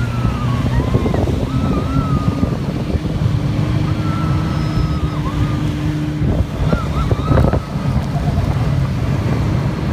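Snowmobile engine running steadily as it tows an inflatable banana boat across the snow, its pitch drifting slightly, with wind buffeting the microphone throughout.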